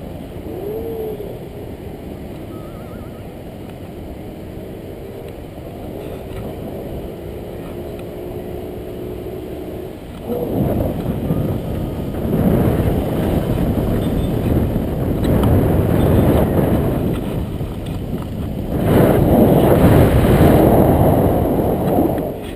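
Wind from a paraglider's flight buffeting the camera's microphone: a steady rush that swells into loud gusts about halfway through, loudest shortly before the end.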